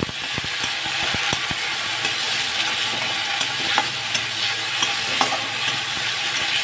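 Onions and ground spices (turmeric and Kashmiri chilli powder) sizzling in hot oil in a kadhai, with a steady hiss, while a metal spatula stirs and scrapes the pan. There is a quick run of spatula clicks in the first second and a half, then a few scattered ones.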